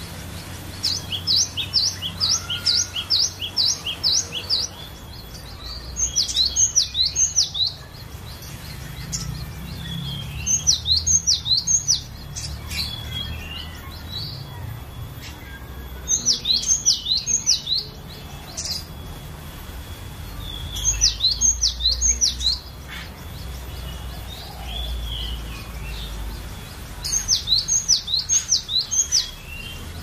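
Cinereous tit (glatik batu) singing: short phrases of four to eight quick, high, sharply repeated notes, with a pause of a few seconds between phrases.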